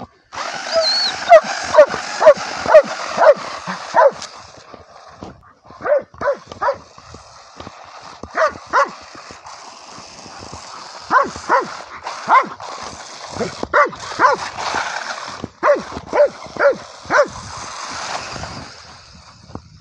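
German Shepherd barking in quick runs of several barks, about two a second, with short pauses between the runs. A steady high hiss runs underneath.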